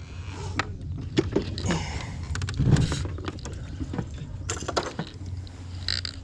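Knocks, clicks and clatter of the fish and gear being handled in a small jon boat, over a steady low hum.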